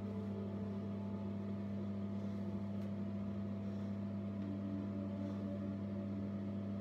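Steady low electric hum, even throughout, like a small motor or mains hum.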